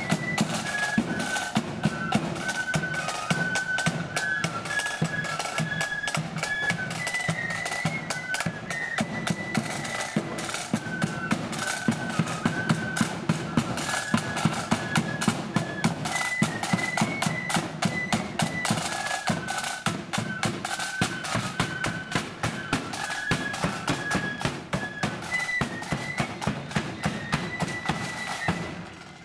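Marching flute band playing a tune on flutes over side drums and a bass drum beating a steady march rhythm. The sound drops away near the end.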